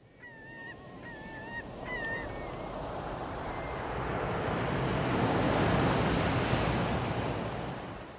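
Sea waves washing with wind, swelling to a peak about two-thirds of the way through and fading out near the end. Several short bird calls sound in the first few seconds.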